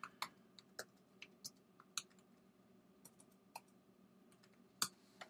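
Faint typing on a computer keyboard: irregular, separate key clicks, with one louder click near the end.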